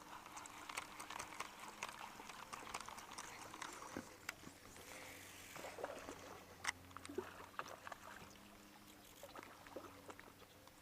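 Faint water lapping and trickling against a small aluminum boat, with scattered small clicks and taps throughout.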